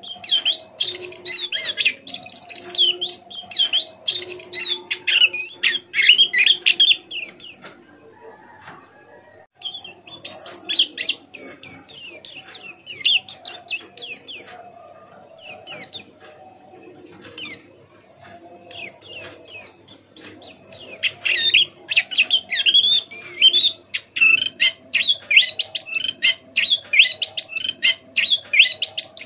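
White-eye (pleci) singing a fast, soft twittering of rapid high chirps in long runs, broken by short pauses about a third of the way in and around the middle.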